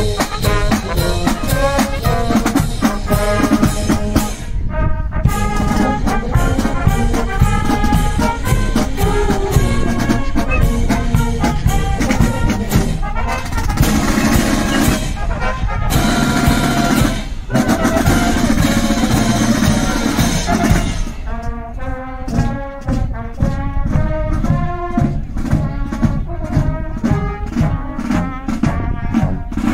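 Marching show band playing a march: brass (trumpets, trombones, sousaphones) over snare drums keeping a steady beat. From about twenty seconds in the brass grows softer and the drum strokes stand out.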